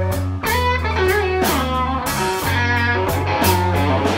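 Slow blues played by a band: an electric guitar lead with bent notes over a bass line and drums, with no singing.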